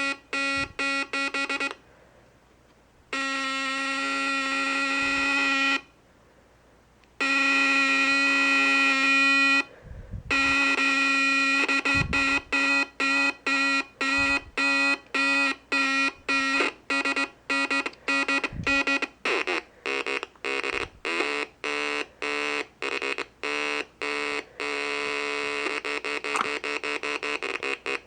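Three cascaded 555 timer oscillators driving a small speaker: a harsh square-wave buzz switched on and off, first in a few short beeps and two long tones, then in quick beeps that speed up to several a second. Near the end the pitch shifts as the timers' frequencies are adjusted.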